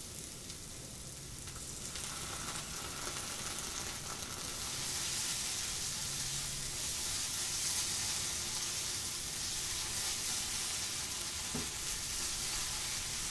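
Onions, garlic and chili spices sizzling in a hot nonstick frying pan as tomato paste is stirred in with a silicone spatula. A steady frying sizzle that grows a little louder over the first few seconds.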